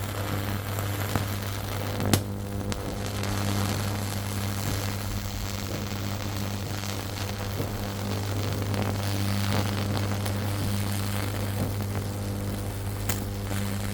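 Microwave oven transformer humming steadily at mains frequency while its high-voltage output arcs across an LED strip circuit board, a buzzing crackle with sharp snaps about two seconds in and near the end.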